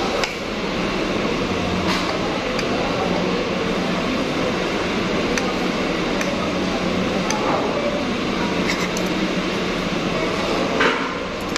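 Restaurant din: a steady hum of background voices and air conditioning, with a few sharp clicks of a metal fork and spoon against a plate, the loudest near the end.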